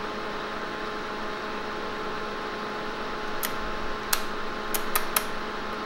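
Steady electrical hum and hiss from running bench electronics. About three and a half seconds in, five sharp clicks over less than two seconds as a front-panel rotary switch on the HP 5245L Nixie counter is turned through its detents.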